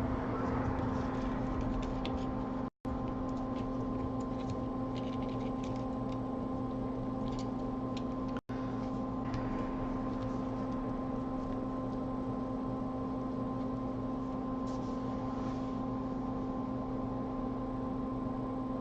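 Steady hum of electrical workbench equipment, with a few faint clicks and taps of small parts being handled. The sound cuts out for an instant twice, about three seconds in and again past eight seconds.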